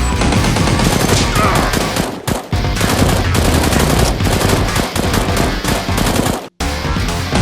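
Rapid automatic gunfire sound effects, fast bursts of shots over background music, cutting off for an instant a little after two seconds and again near the end.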